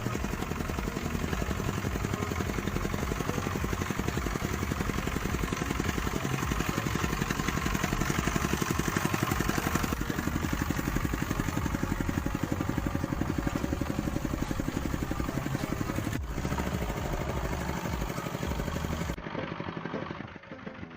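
An engine running steadily, with a fast, even firing rhythm. There is a brief break about sixteen seconds in, and the sound gets quieter near the end.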